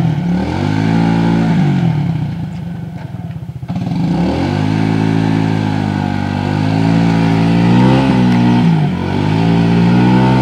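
ATV engine revving up and down again and again as the four-wheeler is rocked back and forth to work free in deep mud. About two seconds in it falls to a low, chugging idle for a moment, then revs up again.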